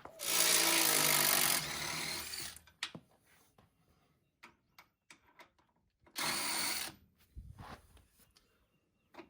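A cordless power tool runs in two bursts, unfastening the Jeep's track bar bolts. The first burst lasts about two seconds and eases off before stopping, then come a few clicks, and a shorter burst about six seconds in.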